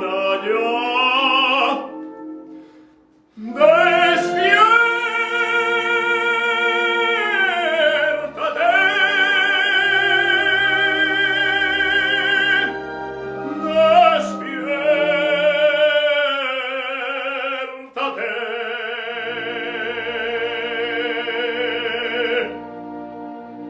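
Operatic singing: a trained voice holding long, high notes with wide vibrato over an accompaniment. It breaks off briefly about 3 s in and again near 18 s in, and the singing stops a second or so before the end, leaving quieter music.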